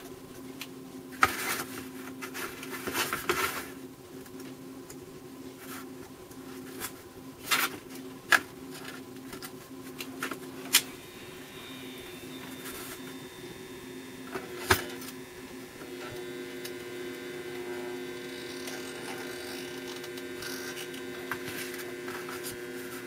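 Scattered small clicks and knocks of wire, parts and tools being handled on a cardboard-covered bench, over a steady electrical hum. A higher steady buzz joins about halfway through.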